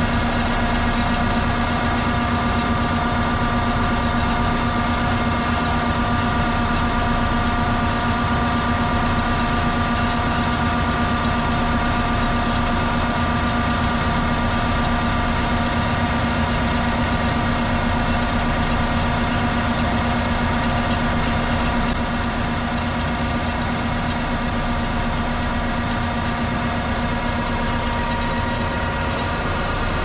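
Large combine harvester running steadily at full working speed: an even engine and machinery hum with a constant whine on top. It eases slightly about two-thirds of the way through.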